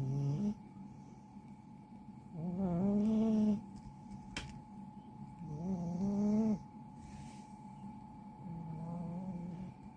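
A sleeping cat snoring, with a drawn-out pitched snore about every three seconds; the last snore is softer.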